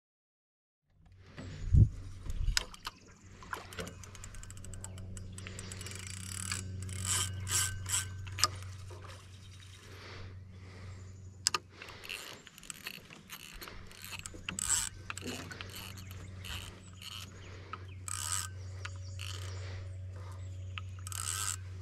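Fishing reel ratcheting and clicking in irregular runs over a steady low hum.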